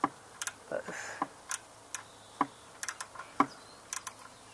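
Irregular sharp clicks and clinks of hand tools working a nut on the quad's exhaust mounting, metal tapping on metal, about fifteen in a few seconds.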